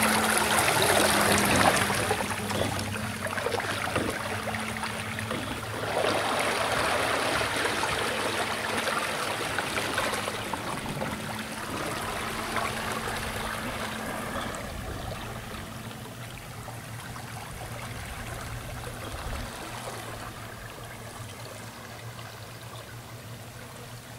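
Water churning and splashing behind a kayak's electric trolling motor propeller as the boat pulls away under power. The sound fades steadily as it moves off into the distance.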